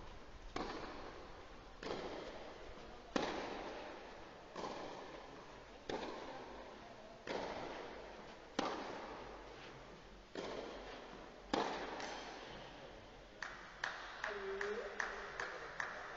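Tennis ball struck back and forth in a baseline rally on clay, about nine racket hits roughly 1.3 s apart, each echoing under the arena roof. Near the end, a run of lighter, quicker taps follows.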